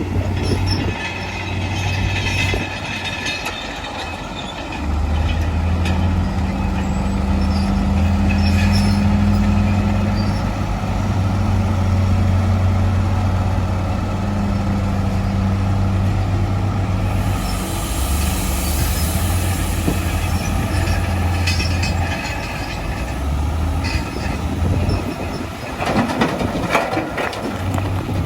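Bulldozer's diesel engine running under load, with metallic squealing and clanking from its steel tracks. The engine note gets louder about five seconds in and eases off near the end.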